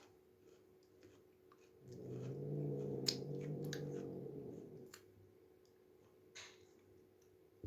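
Angry cat's low, drawn-out growling yowl, starting about two seconds in and lasting roughly three seconds, with a few faint clicks around it.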